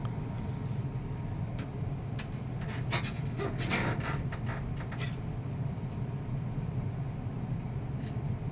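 Light clicks, taps and rubbing from handling small tools and parts on a workbench, bunched in the first half, over a steady low background hum.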